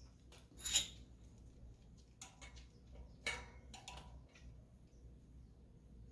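Wrench clinking against the bicycle rear hub's axle locknut as it is snugged down: a few sharp metallic clicks, the loudest under a second in and another cluster a little past three seconds.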